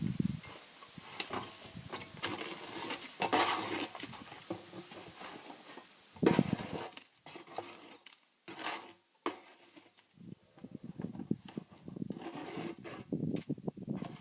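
Hand tools scraping and clinking against mortar and concrete block, in irregular strokes. The loudest scrape comes about six seconds in, followed by a couple of sharp clicks.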